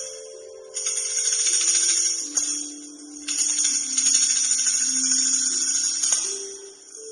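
Shaken jingling percussion in two long rolls, over a slow line of held notes that steps down in pitch.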